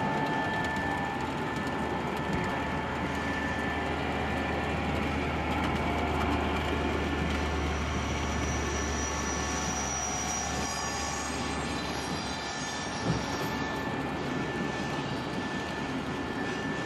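HO scale model train running along the layout track, its streamlined passenger cars giving a steady rolling rumble and whir. There is a single short click late on.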